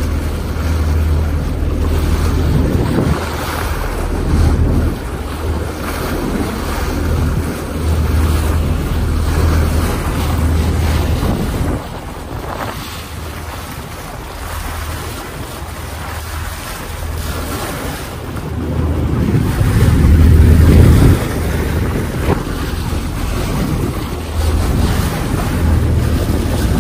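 The car ferry Harukaze under way: a low, steady engine hum with water and wind noise rushing over the microphone, in gusts that swell loudest about twenty seconds in.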